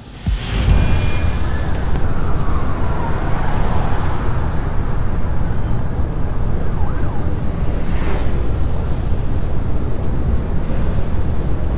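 Urban road traffic: a steady low rumble of passing vehicles, with a faint siren gliding up and down a couple of seconds in.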